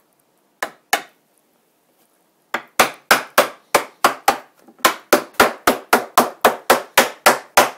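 A hammer tapping a wooden side rail down into the glued groove of a Langstroth beehive bottom board: two taps about half a second in, then a quick, even run of taps, about four a second, from about two and a half seconds in.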